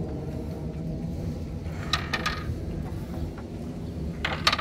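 A round spinner wheel on a playground activity panel being turned by hand, giving short clicking rattles about two seconds in and again, louder, near the end.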